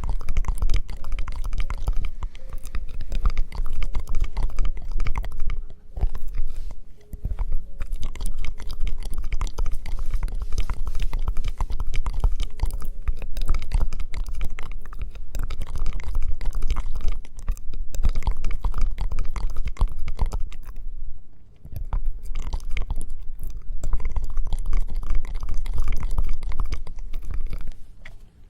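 Close-miked ASMR trigger sounds: continuous crackly scratching and rubbing right on the microphone, with many quick crackles over a deep rumble and a few brief pauses.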